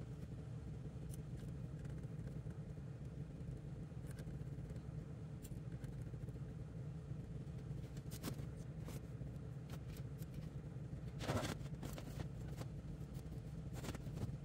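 Small clicks and scrapes of a screwdriver and wires being handled at a furnace control board, over a steady low rumble. One louder scrape comes about eleven seconds in.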